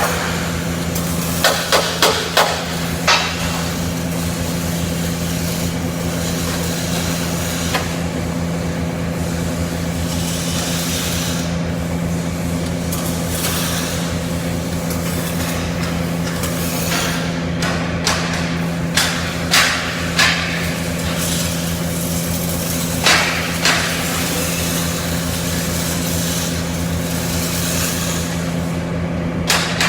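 Steady hum and hiss of CO2 (MIG) welding equipment, broken by clusters of short sharp knocks on metal: four in quick succession near the start and several more about two-thirds of the way in.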